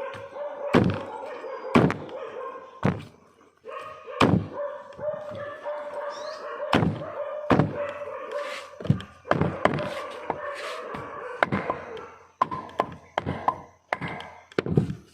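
A heavy knife chopping through a large fish on a cutting board: about a dozen irregularly spaced thunks.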